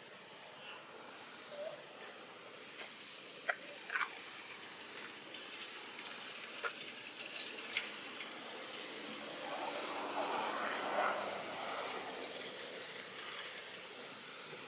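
Outdoor background hiss with a thin, steady high-pitched whine, a few scattered soft clicks, and a swell of louder noise about ten seconds in.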